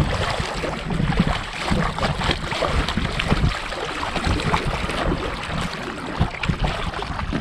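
Double-bladed kayak paddles dipping and pulling through lake water in hard, repeated power strokes: a run of splashes and drips off the blades, with wind rumbling on the microphone.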